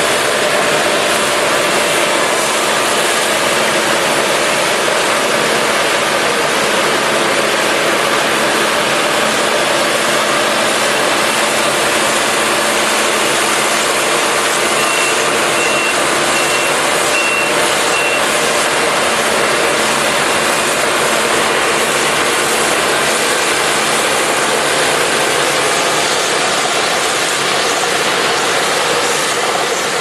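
Claas Lexion combine harvester working under load at close range: a loud, steady mechanical drone of its engine, threshing and cutting gear. Around the middle, a short run of about five high beeps sounds over it.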